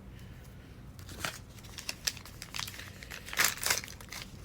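Thin plastic packaging crinkling in scattered bursts as it is handled and opened, loudest about three and a half seconds in.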